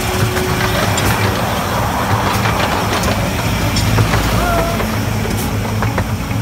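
A miniature railway train of locomotive and carriages running by, a steady low rumble with scattered clicks and rattles.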